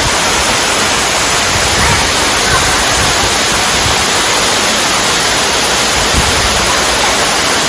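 Underground waterfall dropping 29 m from a crack in a limestone cave's ceiling: a steady, loud roar of falling water that resounds through the cave's dome.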